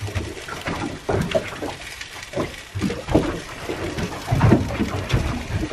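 Small waves slapping irregularly against the hull of an anchored boat, a run of uneven splashes and knocks.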